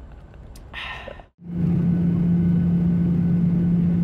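A steady engine drone with a constant low hum and rumble. It starts abruptly about a second and a half in, right after a brief moment of silence.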